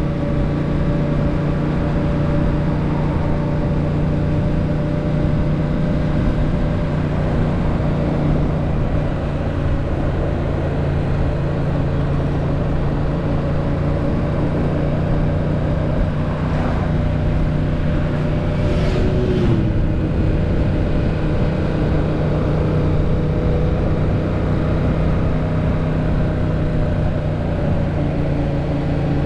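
Yamaha MT-07's 689 cc parallel-twin engine running at steady cruising revs, recorded on the bike by a GoPro.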